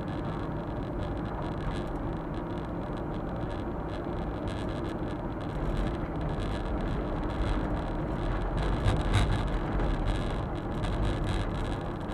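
Suzuki Super Carry kei truck driving, its engine and tyre road noise heard from inside the cab. The noise grows louder about halfway through, with a few knocks around three-quarters of the way in.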